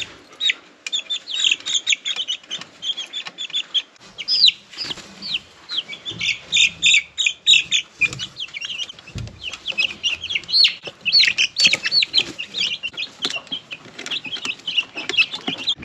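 A brood of young Rhode Island Red and Rhode Island Red × Barred Rock chicks peeping continuously, many short high chirps overlapping, with light scratches and knocks from their feet and a low thump about nine seconds in.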